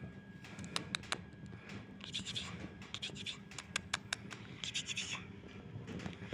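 Scratchy rubbing bursts and a few sharp clicks as a hand rubs and wrestles a kitten on a rug.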